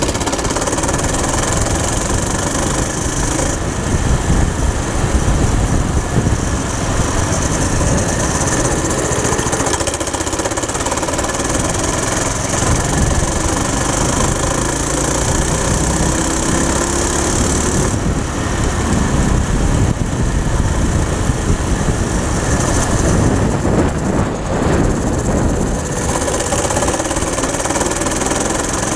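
Go-kart's small four-stroke engine running steadily under load as the kart drives along.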